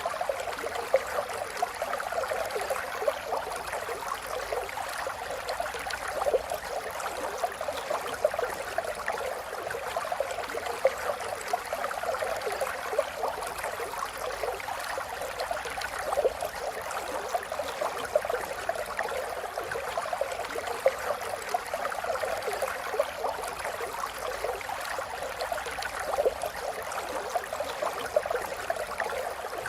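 River water flowing steadily over stones, a continuous babbling and gurgling with many small splashes.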